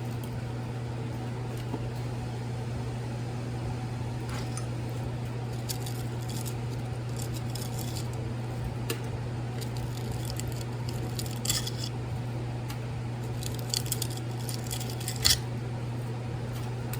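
Copper winding wire and plastic insulation layers being pulled off a transformer's steel core by hand, making scattered light clicks, crinkles and scrapes over a steady low hum.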